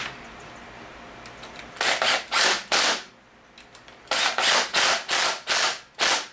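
Torque wrench's ratchet clicking in short bursts, three and then about six more, as outboard cylinder head bolts are torqued down.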